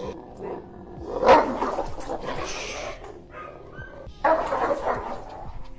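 A dog barking angrily in two loud outbursts, one about a second in and another just after four seconds, as it resists a slip lead being put over its head.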